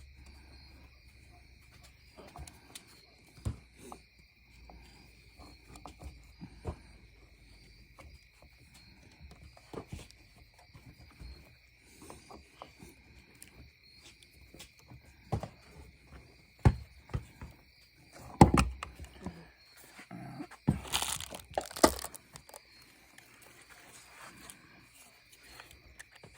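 Scattered clicks, knocks and rustles of plastic parts being handled while a trimmer head is fitted to a string trimmer, with a louder clatter about two thirds of the way in and another cluster shortly after. A steady faint high-pitched tone runs underneath.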